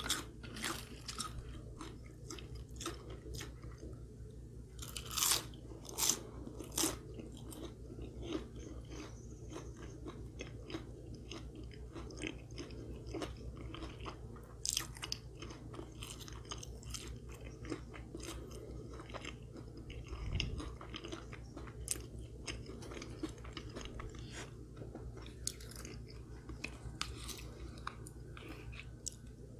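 Close-up eating sounds: curly fries bitten and chewed, many small crisp crunches and wet chewing, with a few louder crunches about five to seven seconds in and again near fifteen seconds.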